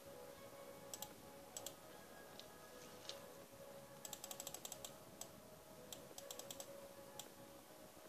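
Faint clicking of computer keys: single presses, then quick runs of rapid presses about four seconds in and again near six seconds, over a faint steady hum.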